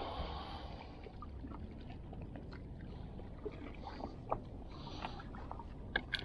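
Steady low rumble of wind and sea wash, with a few light clicks and taps as a spinning rod and reel are laid down on the rocks.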